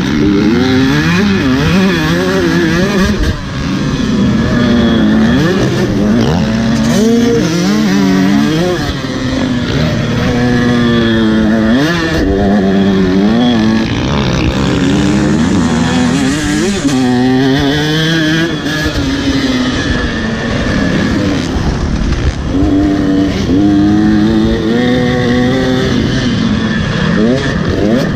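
Motocross dirt bike engine heard close up, revving up and dropping back again and again as the throttle is opened and rolled off through the gears.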